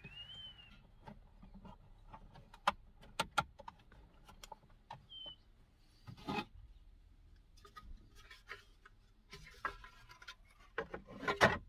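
Plastic steering-column trim covers being handled and fitted back on by hand: scattered clicks, taps and rubbing, with a louder clatter about six seconds in and again near the end.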